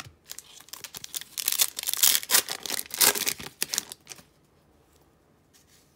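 Foil trading-card pack wrapper being torn open and crinkled by hand, a dense run of crackles that stops about four seconds in.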